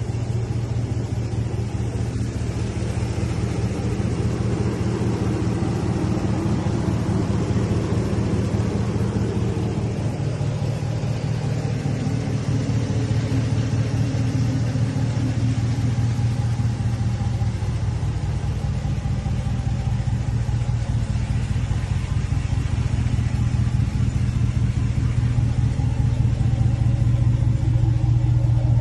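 Ram pickup truck's engine idling steadily with a low, even rumble.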